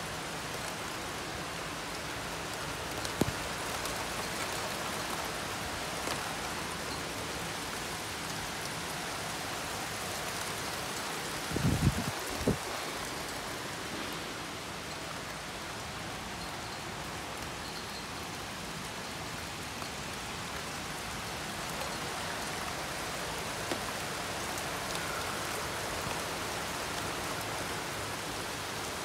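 Steady rain falling, an even hiss. About twelve seconds in, a few short low thumps are the loudest sounds.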